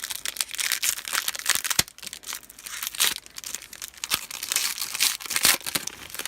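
Crinkly plastic wrapper of a trading-card pack being crumpled and torn open, a dense run of crackling with a few sharp snaps.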